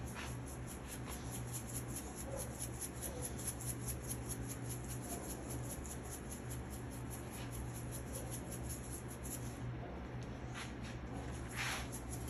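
Plastic spice shaker shaken over raw meat, the seasoning rattling out in quick, even shakes, several a second, with a short pause near the end before a few more. A steady low hum runs underneath.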